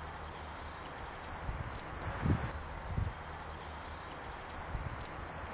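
Outdoor background sound: a steady low rumble with short, faint, high chirps repeating throughout, like a small bird calling, and a couple of soft thumps in the middle.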